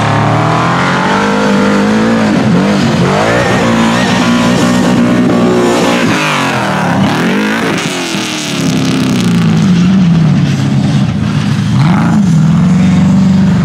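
A rock bouncer buggy's engine revving hard on and off, its pitch climbing and dropping several times.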